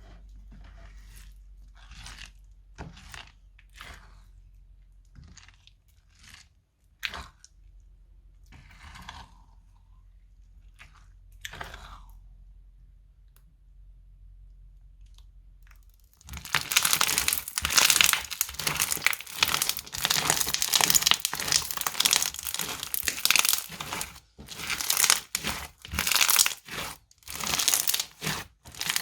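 Crunchy clear slime being pressed and squeezed by hand. A few faint, scattered pops and crackles come first, then about halfway through it turns to loud, dense crackling and crunching.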